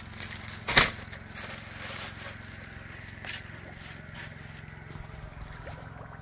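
Handling noise: a sharp crack about a second in, then scattered crinkling and clicks of a thin plastic bag being put down, over a steady low hum.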